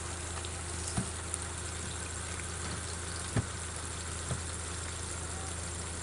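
Steady hiss of flowing stream water, with a couple of faint knocks about one and three and a half seconds in.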